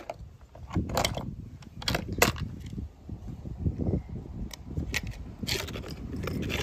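Toy cars being handled: a run of sharp clicks and knocks, about eight of them, irregularly spaced, over a low rumble of handling noise.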